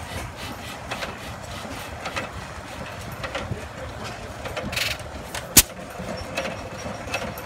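Antique flywheel stationary gas engines running, an irregular clicking and knocking of their valve gear and firing strokes, with one loud sharp bang about five and a half seconds in.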